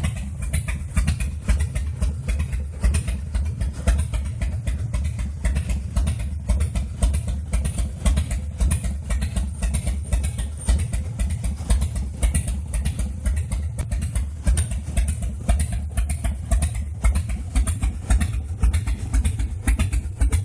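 Harley-Davidson Fat Boy's air-cooled V-twin engine idling steadily with a pulsing beat, running after a service that brought the long-abandoned motorcycle back.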